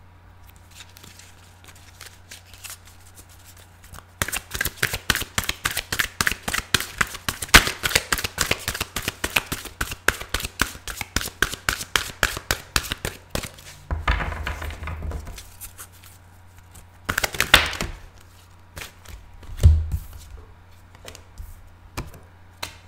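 A deck of cards being shuffled by hand: a rapid run of card clicks lasting about nine seconds. After it come a few separate thumps and rustles as the deck is handled.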